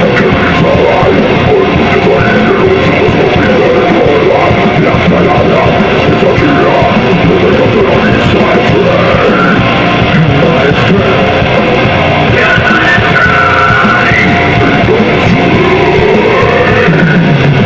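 Rock band playing live: electric guitars, bass guitar and drum kit at a steady loud level, with a singer's voice over them.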